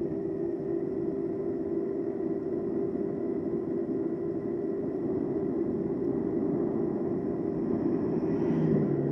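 Steady wind and road noise from riding an e-bike along a paved road. Near the end an oncoming SUV passes close by, briefly louder.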